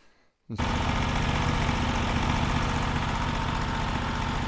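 Small gasoline engine idling steadily, cutting in abruptly about half a second in after near silence.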